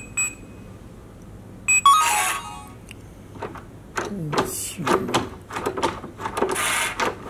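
ZKTeco electronic smart deadbolt's keypad beeping: a rapid run of short beeps ending just after the start, then about two seconds in a short falling chime with a brief rushing sound, then clicks and rattles as the lock and handle are worked. The lock is misbehaving, not locking or unlocking properly.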